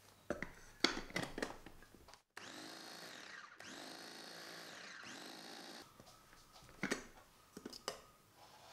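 Electric mini food chopper pulsing almond meal and powdered sugar to grind them finer. Plastic clicks come first as the lid and motor head go on. The motor then runs in short pulses, its whine rising as it spins up and falling as it slows. More plastic clacks come near the end as the lid comes off.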